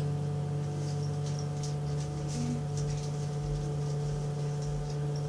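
A steady low hum, with faint scattered light ticks over it.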